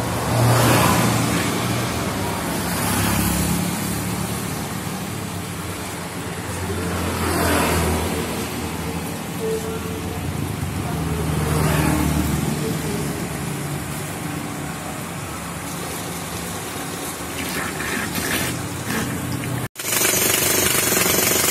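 Road traffic: several motor vehicles pass one after another, each swelling up and fading away. Just before the end, after a short break, a louder steady machine noise starts.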